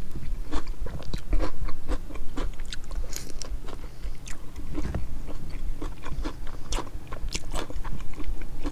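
A person chewing and crunching food close to the microphone, with irregular crisp clicks a few times a second.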